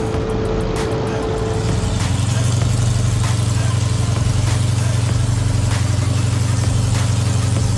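Supercharged V8 of a Dodge Challenger SRT Demon drag car idling steadily, its low note settling in about two seconds in.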